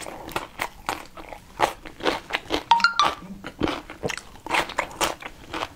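Close-miked eating sounds: a person chewing, slurping and smacking their lips in quick short clicks, with a brief squeaky slurp about three seconds in.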